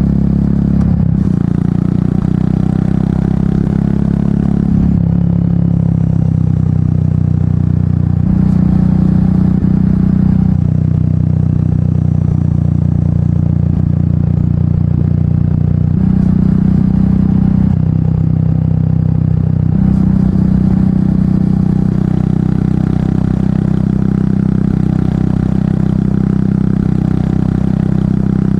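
Royal Enfield Meteor 350's single-cylinder engine running under way through an aftermarket exhaust, its note stepping up and down in pitch several times with throttle and gear changes.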